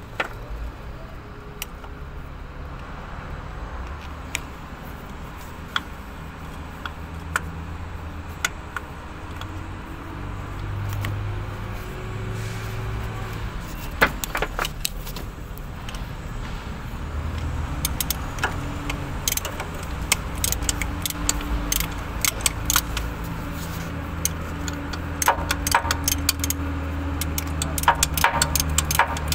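Metallic clicks and clinks of hand tools against the truck engine's pump fittings and hose connections, sparse at first and coming thick and fast near the end, over a steady low hum.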